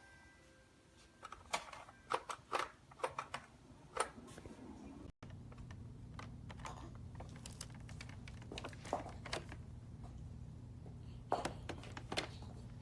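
Scattered sharp plastic clicks and knocks from a cordless stick vacuum being handled. About five seconds in a steady low hum comes in under further clicks.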